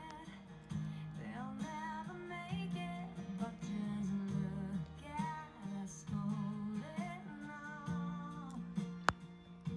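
A song playing: an acoustic guitar with a singing voice holding wavering notes. There is one sharp click near the end.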